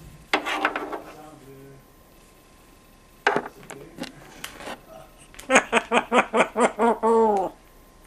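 African grey parrot vocalizing: a short call, a few sharp clicks, then a fast run of about eight repeated pitched notes that ends in a longer note falling away.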